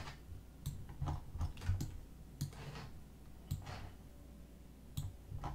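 Computer mouse and keyboard clicks, about ten of them at irregular intervals, faint.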